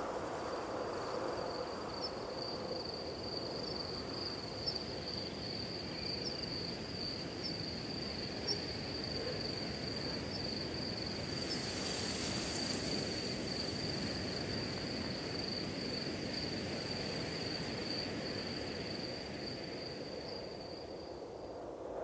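Outdoor nature ambience: a steady high-pitched insect trill over a low rushing noise, with a brief hiss about halfway through.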